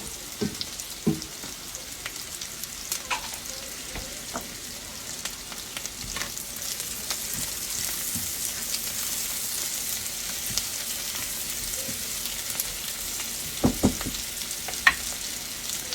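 Onions and green bell pepper sizzling steadily in a cast iron skillet on high heat, with scattered pops and a few clinks of a utensil against the pan near the end.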